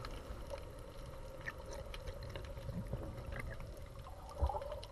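Faint underwater ambience picked up through an action camera's housing: a low water rumble with scattered faint clicks and crackles and a faint steady hum, and a brief louder swish near the end.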